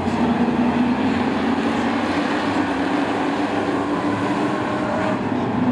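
Engines of a field of race trucks running on a short oval. A loud, steady drone whose pitch rises slightly near the end.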